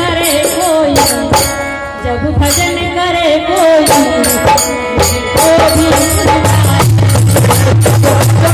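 Hindi devotional bhajan music: a wavering melody line over steady hand-drum beats and jingling, rattling percussion.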